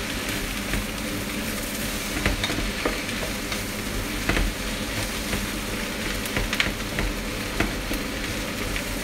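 Chopped onion sizzling as it fries and slowly browns in a frying pan, stirred with a wooden spatula that knocks and scrapes against the pan now and then.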